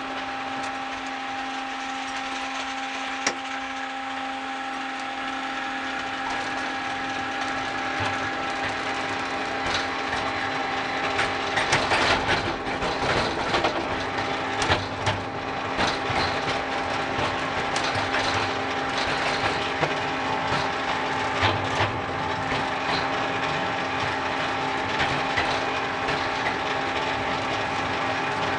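Ride-on miniature train running along its track: a steady whine from its drive under a constant mechanical rattle and clicking of wheels and body. The clicking and rattling grow louder for a few seconds about halfway through.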